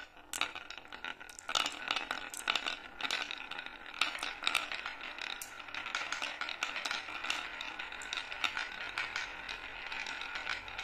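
Many marbles rolling down a wooden serpentine slope track: a steady rolling rattle, dotted with sharp clicks as the balls knock against the carved curves and each other.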